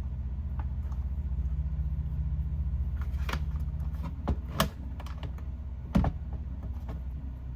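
A few sharp clicks of a hand wire-crimping tool being handled and worked on a terminal, over a steady low hum.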